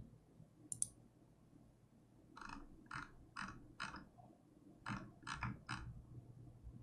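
Faint clicking at a computer while browsing: a group of about four quick clicks a little over two seconds in, then another group of about four around five seconds in.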